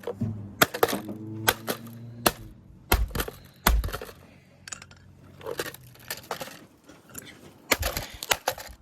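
Sharp, irregular plastic clicks, knocks and cracks as the housing of a cheap Bluetooth speaker is pried and worked open by hand. There is a lull in the middle, then a quick cluster of clicks near the end.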